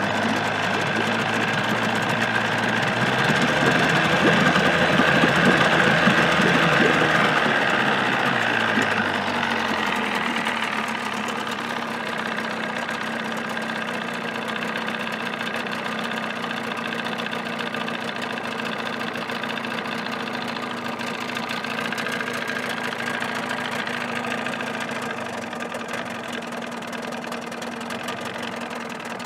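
1979 Evinrude 35 hp two-stroke outboard motor running out of the water, its hood lined with sound-deadening mat. A few seconds in it speeds up and gets louder, then settles back to a steady idle.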